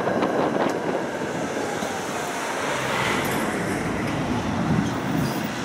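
Tram running along its tracks, heard from aboard: a steady rolling rumble and hiss of wheels on rails, with a few light clicks near the start.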